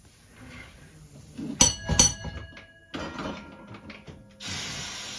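A bell struck twice, about half a second apart, ringing on after each strike. A steady hiss starts near the end.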